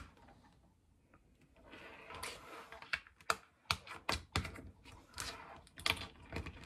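A soft rustle, then from about three seconds in a rapid, irregular run of small sharp clicks and taps.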